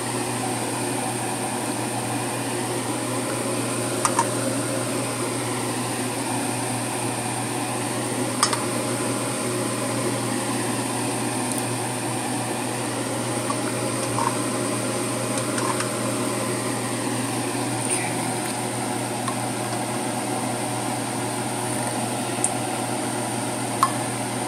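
Steady whirring hum of a fan, with a few light clicks scattered through.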